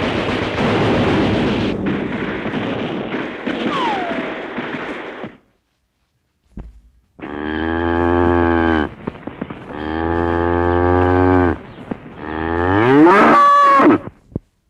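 Dense battle noise of artillery and gunfire, with a short falling whistle about four seconds in, cuts off after about five seconds. After a short silence, a cow moos three times, the last moo rising in pitch.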